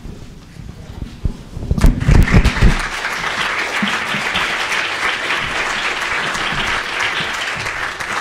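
Audience applauding. The clapping breaks out about two seconds in with a few loud low thumps, then carries on as a steady, dense patter of many hands.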